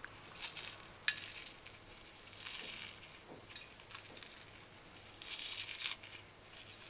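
Skin being peeled by hand off dried salted codfish, held in a paper towel: dry crackling and rustling in irregular bursts, with a sharp click about a second in.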